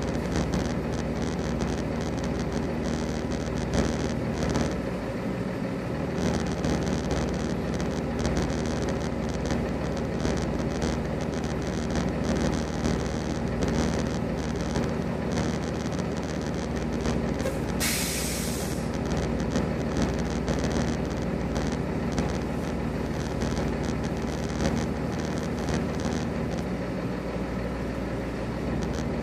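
Diesel semi-truck engines idling with a steady hum. About two-thirds of the way through comes one sharp burst of air hiss lasting about a second: a truck's air brakes being set or released.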